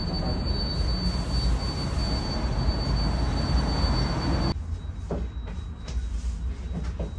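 Steady rushing roar of the fire inside a red-hot tandoor, with a thin high whine over it, cutting off sharply about four and a half seconds in. After that a few soft clicks and taps as hands fill samsa dough.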